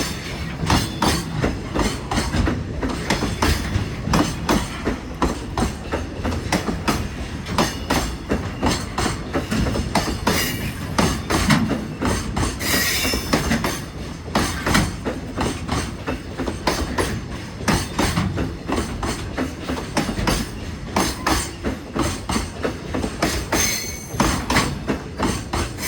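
Freight train wagons rolling over rail joints: a dense, uneven run of wheel clicks and clunks, with brief high-pitched wheel squeals about halfway through and again near the end.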